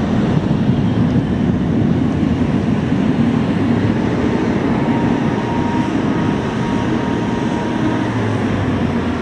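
Steady low rumble of a Boeing 777-300ER's GE90 jet engines at taxi idle, mixed with the engine of a nearby baggage tug towing empty dolly carts.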